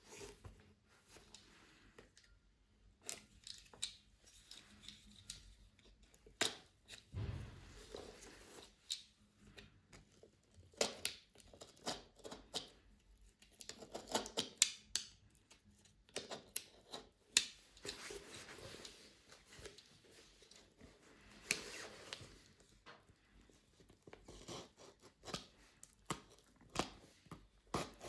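Retail packaging being opened and handled by hand: irregular taps and clicks, rustling and a few brief tearing sounds of cardboard and plastic.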